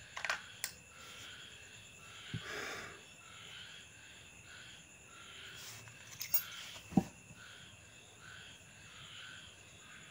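A few small clicks, and one sharp knock about seven seconds in, as a chainsaw carburetor is handled and turned over in the hand. Behind them runs a faint chirp repeating about every two-thirds of a second.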